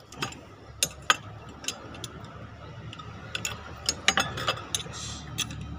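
Ratchet wrench clicking in short irregular runs of sharp clicks, densest a little after halfway, as the new water pump's mounting bolts are turned in.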